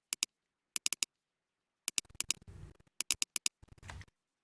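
Laptop mouse or touchpad buttons clicking: a string of sharp single clicks and quick double-clicks. There is a soft rustle twice, in the middle and near the end.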